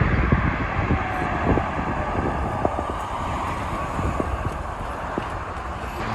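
Ford Laser TX3 under way: steady road and wind noise with low engine and tyre rumble heard inside the cabin, with a few faint knocks and rattles.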